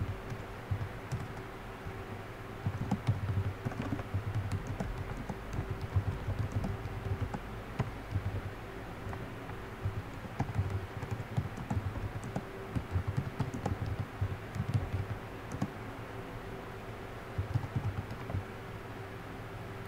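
Typing on a computer keyboard in irregular runs of keystrokes with short pauses, over a steady low hum.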